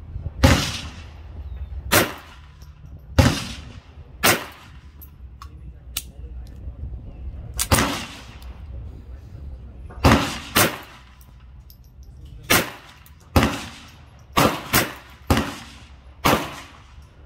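Ruger Mark IV Tactical .22 LR semi-automatic pistol firing a string of about fifteen shots. The shots are spaced a second or more apart at first and come faster, some in quick pairs, in the second half. Each sharp crack dies away quickly.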